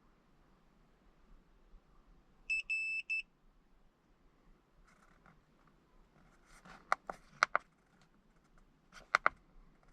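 Handheld OBD2 scan tool gives three quick high-pitched beeps, then its buttons click sharply several times in small groups while it reads the engine's trouble codes.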